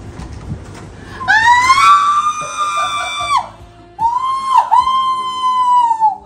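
A woman screaming in surprise: two long, high-pitched held screams of about two seconds each, the second with a brief catch near its start.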